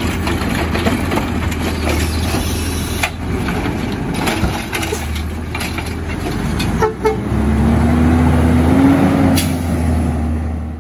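Garbage truck running close by: a steady engine hum with scattered knocks and clatter. About three quarters of the way through, a whine rises and then eases slightly as the truck works harder.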